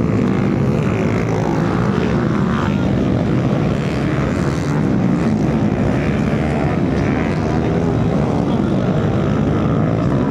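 Several small-wheel motocross dirt bikes racing, their engines running loud and steady with revs rising and falling as they work around the track.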